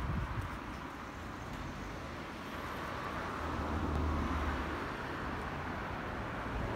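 Steady outdoor background rumble of distant vehicles, with a low hum that swells slightly around the middle.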